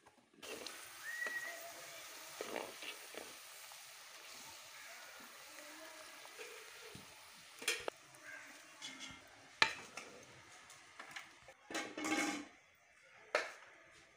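Potato fries deep-frying in hot oil in a wok over a wood fire: a steady sizzle that starts suddenly about half a second in, with a few sharp clicks and a short clatter near the end.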